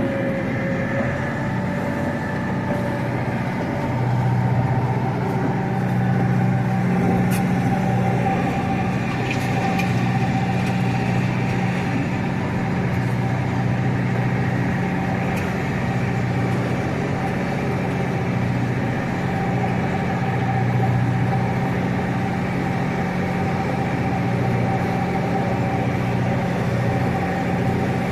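A piece of farm machinery running steadily: a constant engine-like drone with an unchanging hum.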